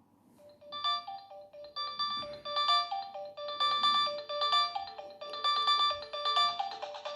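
Nokia 6600 mobile phone playing one of its built-in polyphonic ringtones through its speaker: a repeating melody of short synthesized notes that starts about half a second in.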